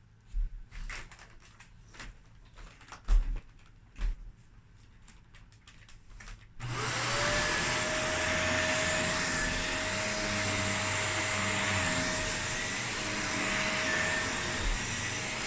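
A few knocks and handling clicks, then about six and a half seconds in a vacuum cleaner switches on: its motor whine rises quickly to a steady pitch and keeps running with a loud rushing of air.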